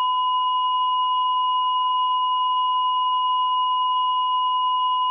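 Heart-monitor flatline tone: one steady, unbroken high beep, the signal that the heart has stopped.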